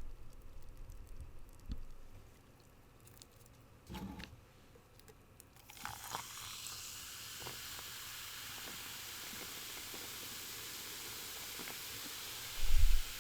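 Coca-Cola fizzing over ice: a few light clicks and a knock, then about six seconds in a steady high fizz of carbonation starts and keeps going. A short low thump comes near the end.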